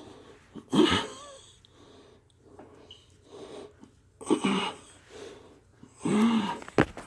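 A man breathing hard while exercising, with three loud, voiced exhalations of effort: the first about a second in, then two more close together near the end.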